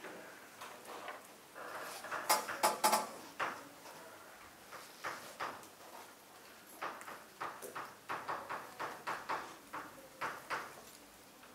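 Chalk tapping and scratching on a chalkboard as a line is written, a string of short sharp strokes that are densest and loudest about two to three seconds in.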